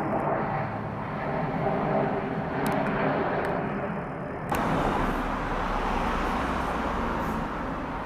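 Jet airliner engine noise, steady, with faint steady tones in it. The sound changes abruptly about halfway through.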